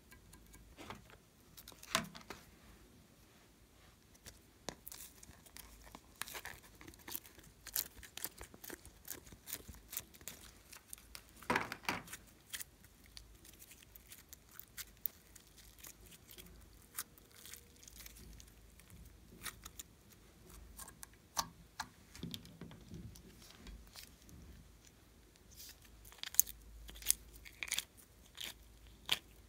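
Hands handling and pulling slime: sticky tearing and crackling with irregular sharp clicks and pops.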